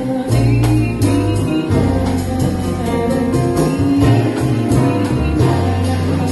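Live jazz band playing: double bass holding long low notes under piano chords, with sharp rhythmic hits keeping time.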